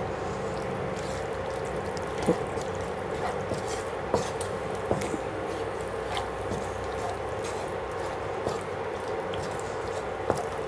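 A wooden spatula stirs vegetables through a wet masala in a non-stick kadai over a steady, gentle sizzle. The spatula knocks lightly against the pan a few times.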